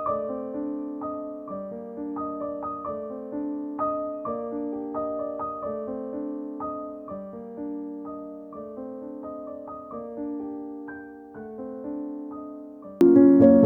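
Background piano music: a soft melody of gently struck notes, which grows suddenly louder and fuller near the end.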